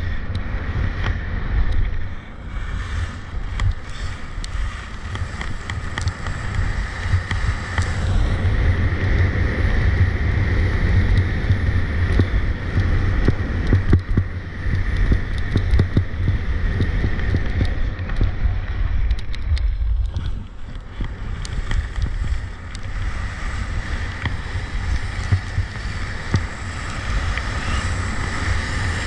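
Skis running down an icy, hard-packed piste, the edges scraping and chattering on the ice, under a steady low rumble of wind on the camera's microphone. The scraping eases briefly about two seconds in and again near the middle.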